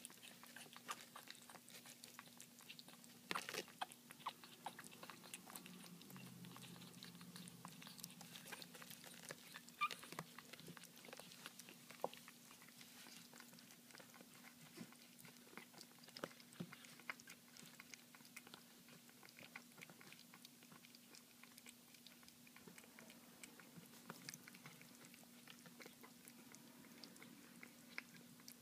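Chihuahua puppies eating soft mashed puppy food from a dish: faint, irregular chewing clicks, with a few louder clicks early and about ten seconds in. A steady low hum sits underneath.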